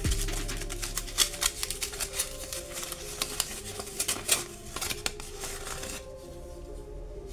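Aluminium foil crinkling and crackling as it is pulled and unwrapped by hand from a small plastic action figure, a rapid, irregular run of crackles that thins out about six seconds in.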